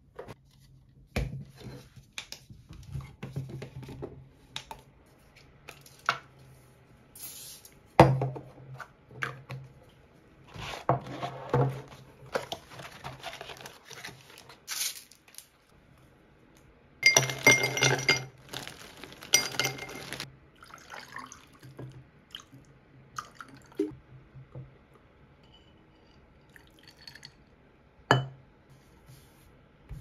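Tabletop sounds of making iced tea: a string of clinks and knocks from a tall glass of ice cubes and a ceramic mug, with the rustle of a tea-bag sachet and liquid sounds. Two longer noisy stretches stand out, the louder one a little past the middle.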